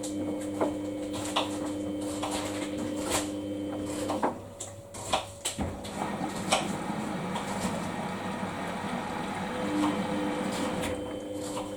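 Washing machine running its wash cycle: a steady motor hum that stops about four seconds in and starts again near the end, with scattered knocks and clicks.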